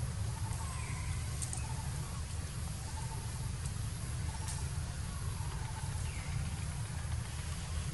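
Outdoor ambience: a steady low rumble with a few faint short chirps and light clicks over it.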